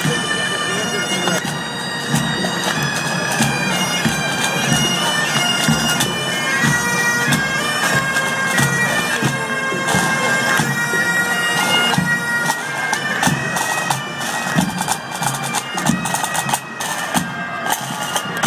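Marching pipe band playing: Great Highland bagpipes holding a drone and melody over snare and bass drums. Near the end the pipes thin out and the drumming stands out more.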